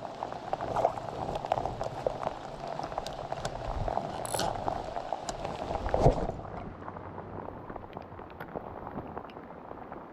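Rain pattering, with many small drops ticking close to the microphone over a steady rush of water. A louder knock comes about six seconds in, after which the sound turns duller.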